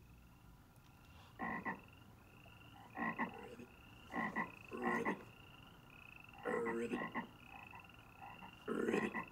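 Frog croaking: a series of short croaks, roughly one a second and uneven in spacing, over a faint high chirp that repeats evenly beneath them.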